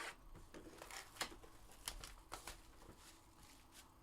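Faint handling noise of trading-card boxes and packs: a few scattered sharp clicks and crinkles of cardboard and foil wrapping.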